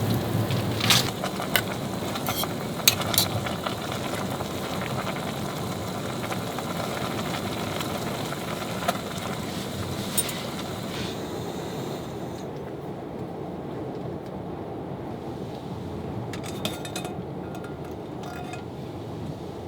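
Storm wind and wind-driven snow buffeting a parked car, a steady rushing noise that eases a little about twelve seconds in. A few light clicks and clinks sound in the first few seconds and again near the end.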